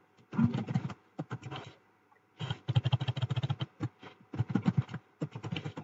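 Computer keyboard typing: several quick runs of key clicks with short pauses between them, as a password is keyed in at a terminal prompt.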